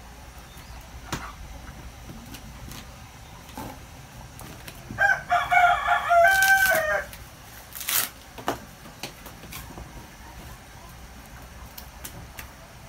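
A rooster crowing once, a single call of about two seconds around the middle, with scattered light knocks and clicks before and after.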